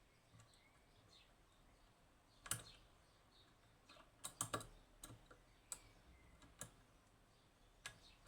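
Faint, sparse metallic clicks of a lever-lock pick and tensioner working the levers inside a Union (Chubb) G110 five-lever lock. The sharpest click comes about two and a half seconds in, and a quick cluster of clicks follows around four and a half seconds.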